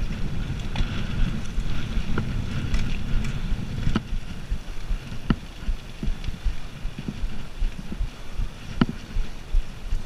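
Riding noise from a gravel bike on a tarmac lane: steady wind rumble on the microphone and tyre noise, with a few sharp clicks of the bike rattling, the loudest near the end.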